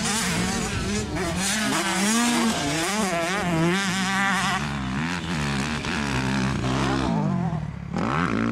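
Motocross bike engine revving hard around a dirt track, its pitch rising and falling again and again with the throttle. It dips briefly near the end, then picks up again.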